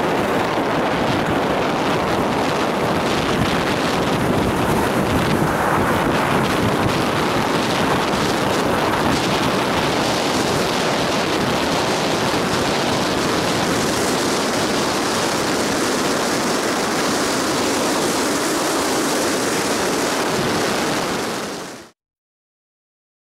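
Wind rushing over the microphone of a camera held at a moving car's window, mixed with the car's road noise, loud and steady; it cuts off suddenly near the end.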